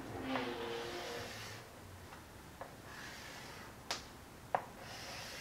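Faint scraping of a writing tip drawing straight lines on a blackboard, with a few sharp taps as the tip meets the board.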